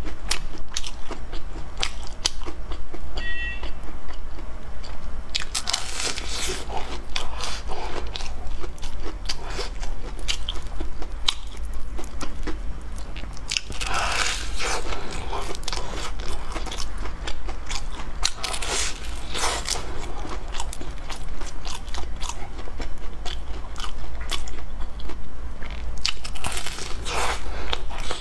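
Close-miked crunching bites and chewing of a deep-fried, breadcrumb-coated bun's crispy crust. Denser spells of crunching come every few seconds, with quieter chewing between.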